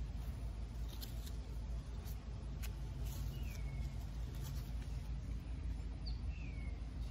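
A low steady rumble with a few light clicks from a pear branch being handled, and a bird giving two short falling chirps in the second half.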